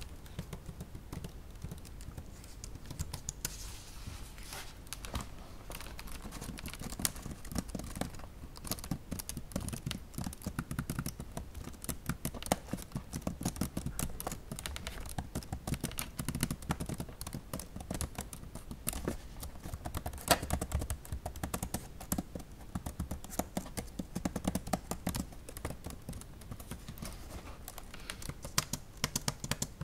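Keys of an Acer Aspire 3 laptop keyboard typed and tapped with long fingernails, a rapid, continuous run of soft key clicks.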